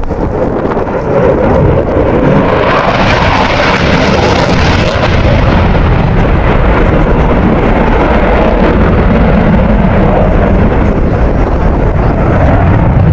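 Dassault Rafale C fighter's twin Snecma M88 turbofans in afterburner, loud jet noise with a deep rumble. A brighter, hissier edge swells about three seconds in and eases after about six seconds as the low rumble grows stronger.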